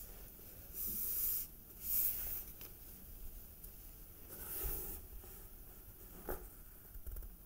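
Fingertips rubbing and tracing over a comic book's cover close to the microphone, in three soft scratchy strokes, with a short click near the end.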